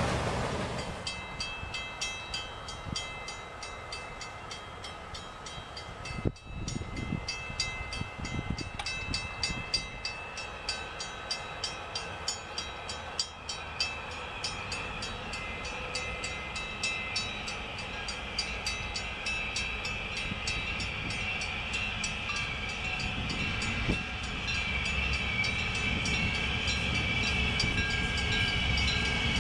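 Freight cars rolling past over the rails as the tail of a mixed freight train goes by. After a break about six seconds in, a train led by EMD E8 diesel locomotives approaches and grows louder near the end, with a rapid, even ringing of grade-crossing bells throughout.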